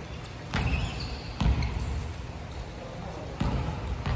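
Three dull thuds of a volleyball, about a second or two apart, each ringing briefly in the large gym hall.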